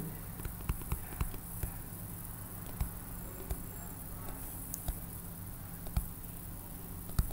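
Faint, irregular ticks and taps of a stylus writing on a tablet screen, about one a second, over a low steady hum.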